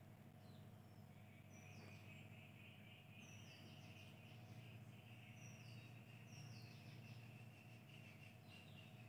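Near silence: a faint steady high trill of chirping insects that comes in about a second in, with short high chirps every second or two, over a low steady hum.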